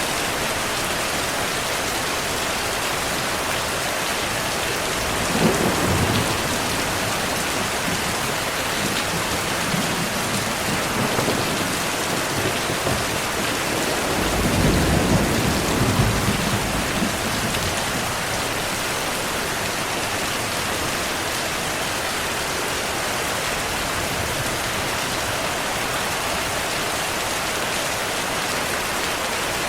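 Steady rain, with thunder rumbling twice: a brief rumble about five seconds in and a longer rumble around the middle.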